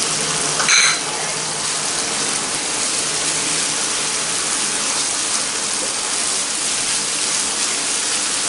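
Diced onion and a tomato-and-sauce masala sizzling steadily in a hot non-stick pan on a high flame, stirred with a wooden spatula. There is a short, sharp clink about a second in.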